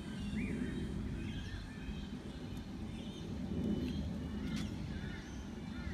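Auto Chair Olympian four-way electric wheelchair hoist running steadily as it carries a power chair out of the cargo area. Birds chirp now and then over it.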